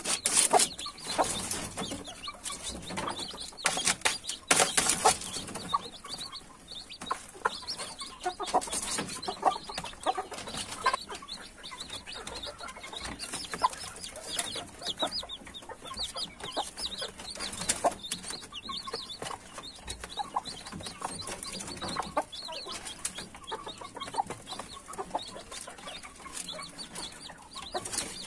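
Young chicks peeping in a steady stream of short, high chirps while they peck grain off a plastic feed tray. The pecks make sharp clicks, loudest in the first few seconds.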